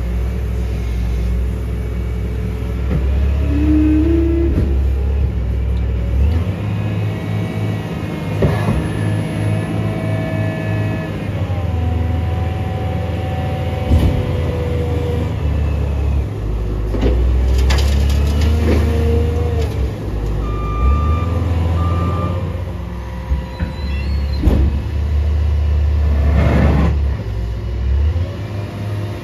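Wheel loader's diesel engine working hard, its low drone rising and falling as it scoops and dumps leaves, with hydraulic whine and a few sharp clanks of the bucket. Two short backup-alarm beeps sound about two-thirds of the way through.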